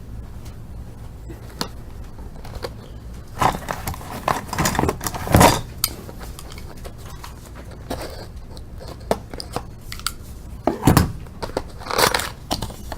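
Hockey card box and its packs being handled: cardboard and wrapper rustling with light knocks, in two louder clusters, a few seconds in and again near the end.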